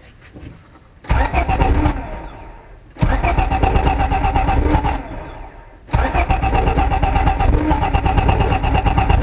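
Honda Del Sol engine, just fitted with 2200cc injectors, being started: it catches about a second in and fades out, catches again at three seconds and dies down, then starts a third time near six seconds and keeps running.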